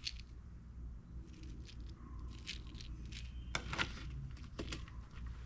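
Faint scattered clicks and small handling noises from a MEC Grabber shotshell reloading press and a hull being handled, over a low steady hum.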